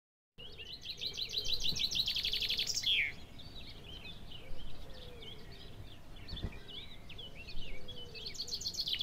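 Songbird singing: a fast trill of rapidly repeated high notes starting about half a second in and ending in a downward sweep, then softer twittering chirps, then the fast trill again near the end.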